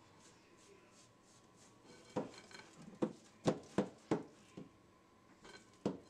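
Hand mixing a sticky dough in a glass mixing bowl: starting about two seconds in, a run of about seven sharp, irregular slaps and knocks of hand and dough against the glass.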